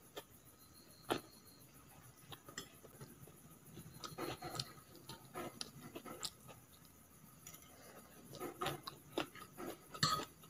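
Close-up eating of chow mein noodles: soft chewing, with scattered clicks of a metal fork and spoon against the plate. The sharpest click comes about a second in and another near the end.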